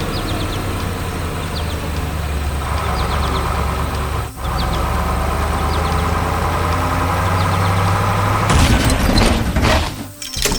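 Heavy vehicle engine running steadily with a low hum, dropping out for an instant about four seconds in. Near the end a loud, hissing, clattering burst lasting over a second covers it.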